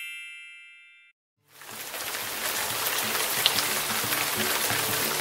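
A bright chime rings and dies away within the first second. After a brief silence, a steady rain-like hiss of granules pouring starts about a second and a half in, with low steady tones underneath.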